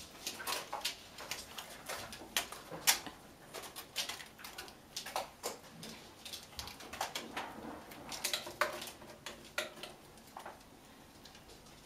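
Kittens' claws scrabbling and scratching on the bark of wooden cat-tree branches as they climb and wrestle: many short, irregular scratches and taps.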